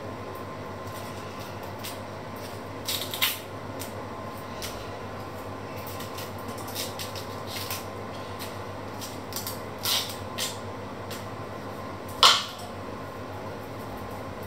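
Dry onion skin crackling and scraping as an onion is peeled with a small knife: a few short, sharp scrapes, the loudest near the end, over a steady background hum.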